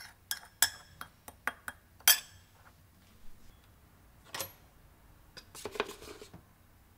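Metal spoon clinking against a small ceramic bowl while stirring a dry spice mix: about seven quick, sharp clinks in the first two seconds. A few softer knocks and handling sounds follow.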